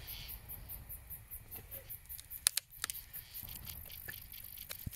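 Scattered small snaps and clicks from kindling in a campfire that is just being coaxed alight, with one sharper snap about two and a half seconds in. A faint, even, high-pitched pulsing of about four beats a second runs underneath.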